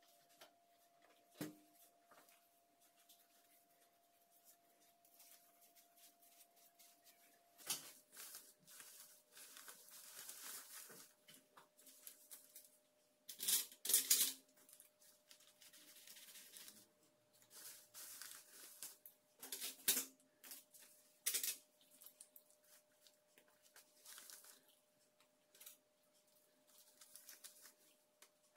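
Paper surgical drape rustling and crinkling as it is spread and handled, loudest about halfway through, with a few sharp clicks of metal instruments. A faint steady hum runs underneath.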